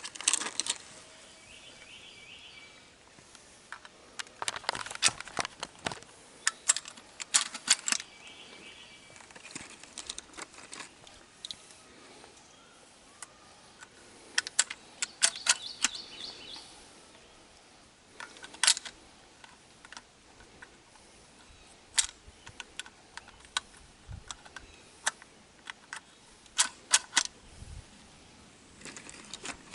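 Irregular clicks and knocks of things being handled, some in quick clusters of several, with a few faint bird chirps.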